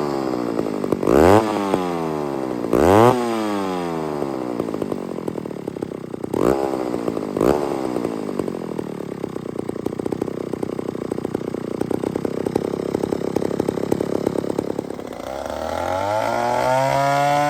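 Two-stroke engine of a 1959 McCulloch Mac 150 80cc chainsaw revved hard twice, blipped twice more, then running steadily; near the end the engine note drops and wavers.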